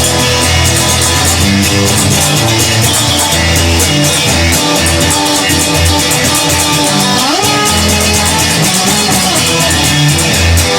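Instrumental rock music: electric guitar over a bass line, with a guitar slide rising in pitch about seven seconds in.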